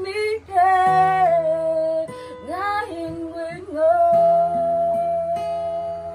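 A woman sings a Burmese song to her own acoustic guitar accompaniment. About four seconds in she holds one long note over the guitar, and it fades near the end.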